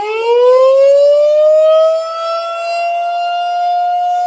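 Federal Signal 2001-130 electromechanical tornado siren winding up for a test, its pitch rising and levelling off about two seconds in to a steady loud wail.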